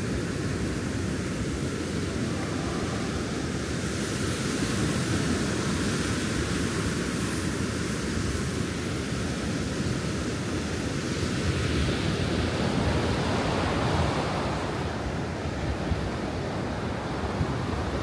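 Steady rushing of ocean surf mixed with wind buffeting the microphone, with a heavy low rumble that swells and eases slowly.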